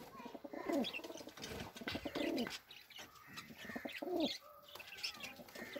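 Domestic pigeons cooing: several rolling coos that rise and fall in pitch, with a few short higher bird chirps between them.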